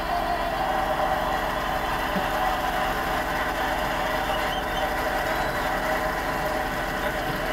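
Arena crowd cheering and applauding steadily after a national anthem, heard through a TV broadcast.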